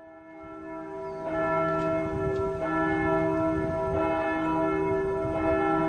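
Church bells ringing, several bells struck again and again so their tones overlap and ring on, fading in over the first second or so.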